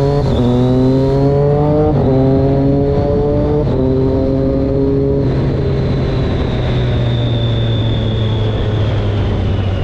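Motorcycle engine accelerating up through the gears while riding: its note rises, drops back at two upshifts about two and three and a half seconds in, then levels off and slowly falls. A high thin whine runs above it and falls in pitch near the end.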